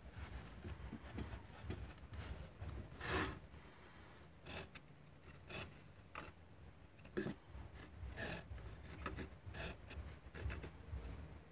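Pencil scratching on a wooden board while a wooden marking-gauge block slides against the board's edge: a series of irregular short scraping strokes, the loudest about three seconds in.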